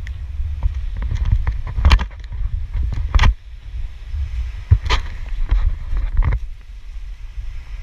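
Wind buffeting the camera's microphone: a heavy, uneven low rumble, with several sharp crackles about two, three, five and six seconds in. The rumble eases after about six seconds.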